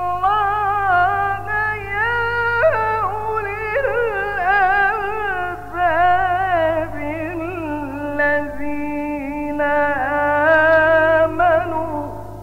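A male Quran reciter's voice in a long, ornamented melodic line, its pitch winding and wavering through held notes before breaking off near the end, over a steady low hum.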